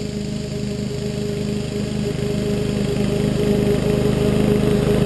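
Rover OHV 910 196cc single-cylinder engine of a walk-behind mower running steadily at fixed throttle while the mower cuts grass, growing louder as it comes closer.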